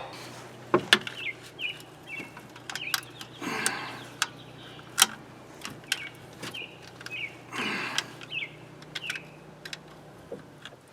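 Small birds chirping in short repeated calls, mixed with scattered sharp clicks and knocks of metal work, the loudest about five seconds in.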